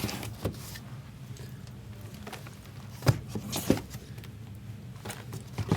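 Cardboard trading-card boxes being handled and set down on a table: a few scattered knocks and taps, two closer together about three seconds in, over a low steady hum.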